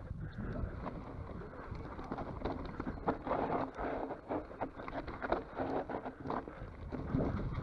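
Mountain bike riding down a rough dirt trail: steady tyre rumble with irregular rattles and clacks from the bike over bumps.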